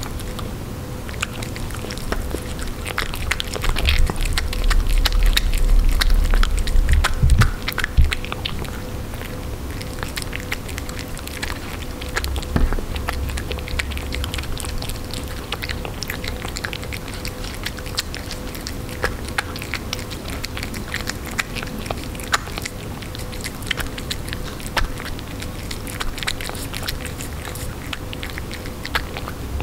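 Russian Blue cat eating wet canned cat food off a hard tabletop close to the microphone: a continual run of wet smacking, licking and chewing clicks. A low rumble swells twice, loudest about four to eight seconds in.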